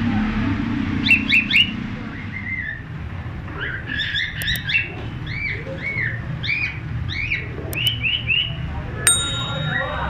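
Cockatiels chirping: a few short sharp chirps, then a run of repeated whistled notes that rise and fall, about two a second. Near the end, a brief chime rings.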